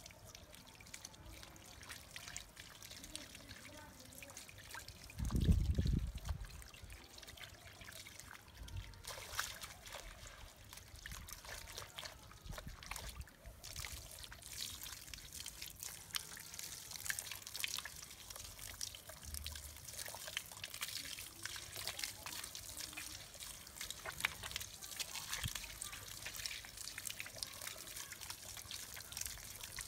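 Water from a hose trickling and splashing onto a soaked rug on concrete while bare feet scrub it, with a brief low rumble about five seconds in.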